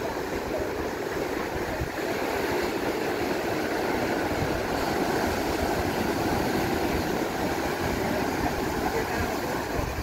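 Pacific Ocean surf breaking and washing in foam over rocks and sand: a steady rushing wash that swells a little in the middle.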